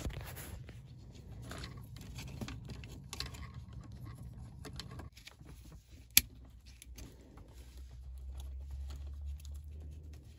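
Hands working plastic wiring connectors into car console trim: scratching and rustling of plastic, with small clicks and one sharp click about six seconds in as a connector snaps into place.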